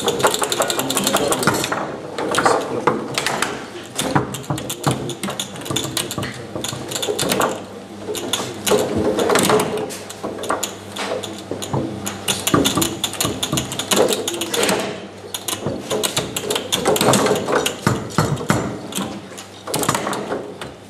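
Foosball played on a Tecball table: a dense, irregular clatter of steel rods sliding and rattling and plastic figures knocking the ball, with brief lulls.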